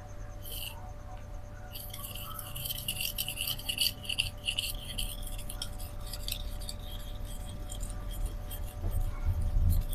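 Steel knife blade stroked quickly back and forth across a fine 4000-grit Shapton Rockstar whetstone, a rapid run of scraping strokes starting about two seconds in. These are alternating-side passes that even out and reduce the burr. A low knock comes near the end.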